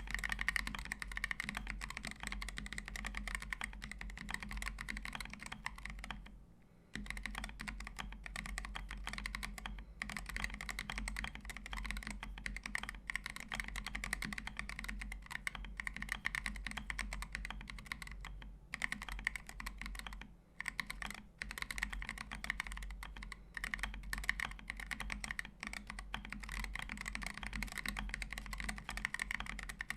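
Continuous fast typing on a Preonic ortholinear mechanical keyboard with lubed Boba U4T tactile switches, an aluminium plate, foam dampening and Kat Lich keycaps, giving a deep, thocky keystroke sound. The typing pauses briefly a few times, the longest pause about six seconds in.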